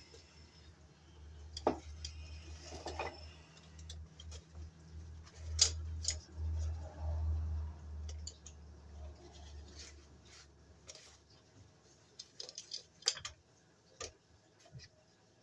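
Hand tools and electrical cable being handled: scattered clicks, taps and scrapes, the sharpest a couple of seconds in, near the middle and about 13 seconds in. A steady low hum sits under them and stops about 11 seconds in.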